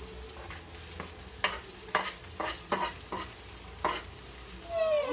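Chicken and vegetables sizzling in hot oil in a pan while being stirred, with about five sharp knocks of the utensil against the pan in the middle.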